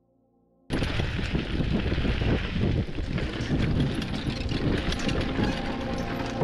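Mountain bike ride through an action camera's microphone: wind rushing over the mic, tyres rolling over dirt and wooden bridge planks, and a constant rattling clatter from the bike. It starts abruptly about a second in.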